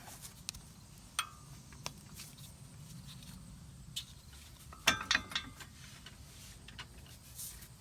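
Light clicks and taps of metal brake parts and tools being handled, with a quick cluster of sharp metallic clinks about five seconds in.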